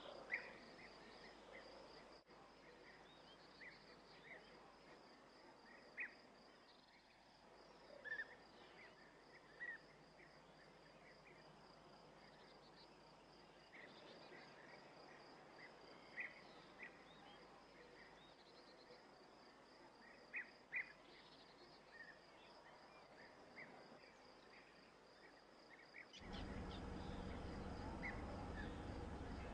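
Faint outdoor ambience: a steady, pulsing high insect trill with scattered short bird chirps. About three seconds before the end, a louder low hum sets in.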